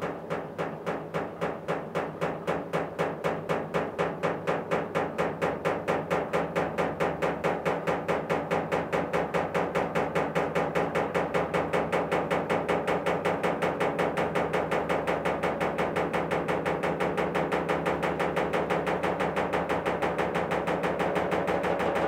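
Top-loading washing machine spinning a load of rugs, the load knocking in the drum in a fast, even rhythm of several beats a second over the hum of the motor.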